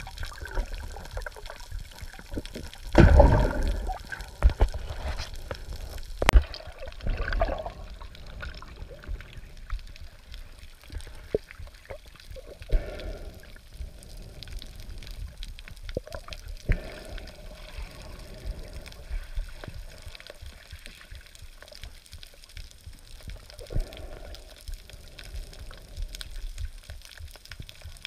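Water heard through an underwater camera: splashing and sloshing at the surface near the start, with loud bursts about 3 and 6 seconds in. Then a quieter muffled underwater rumble with scattered short bubbling gurgles.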